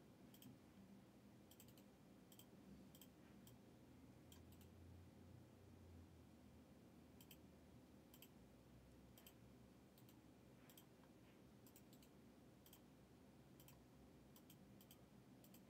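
Faint, irregular clicks from working a computer's mouse and keys while a spreadsheet list is sorted, over near-silent room tone.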